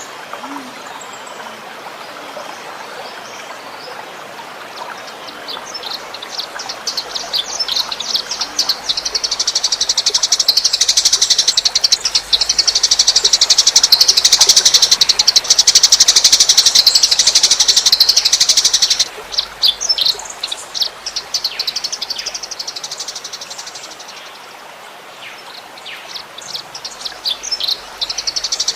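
A songbird's rapid-fire song burst (a 'tembakan' in Indonesian bird-keeping), very fast repeated high chirps that build up, run loud for about ten seconds, break off abruptly and start again near the end, over a steady trickle of running water.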